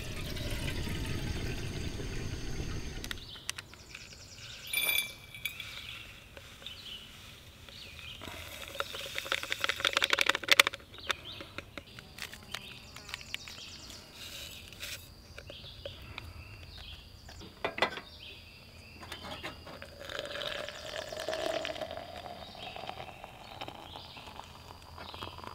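Water poured from a bottle into a small camping kettle for the first few seconds, then scattered clicks and clinks of camp cookware. Near the end, hot water poured from the kettle into an insulated tumbler, its pitch rising as the tumbler fills.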